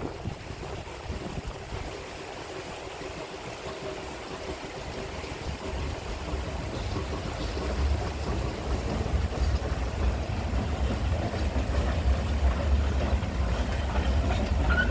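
Small narrow-gauge steam train running over a bridge: a low rumble that grows steadily louder from about five seconds in as it approaches, over the rush of a shallow river.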